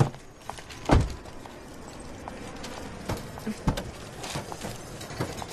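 A dull thump about a second in, followed by scattered light taps and knocks over a low background hum.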